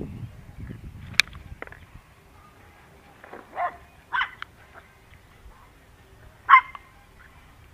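A dog barking: three short barks, the last one the loudest, with a single sharp click about a second in.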